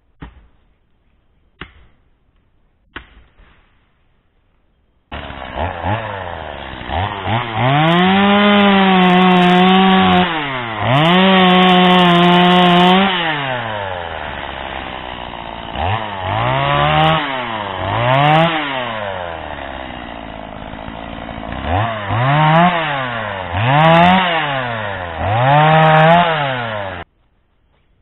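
Three sharp blows on wood about a second and a half apart, then a two-stroke chainsaw revving: it climbs to full throttle in two long cuts through a small tree, drops back toward idle and is revved up and down several times before cutting off suddenly.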